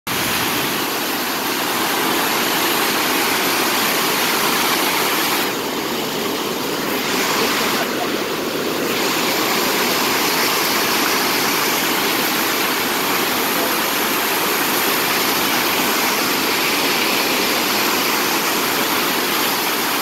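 Lower Falls of the Yellowstone River: a large waterfall's steady rush of heavy water plunging over its brink, heard close up.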